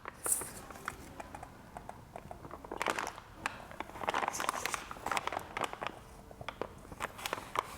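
A plastic piping bag crinkling and rustling in short bursts with small clicks as it is handled and filled with melted chocolate.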